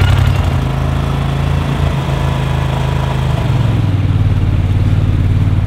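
Small duck boat's mud motor running hard under way, pushing the hull through lily pads. The engine note dips slightly about three and a half seconds in.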